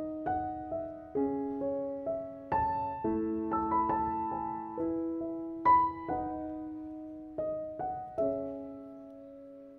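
Background piano music: a slow, gentle melody of single struck notes and chords that ring and fade, with a long note dying away near the end.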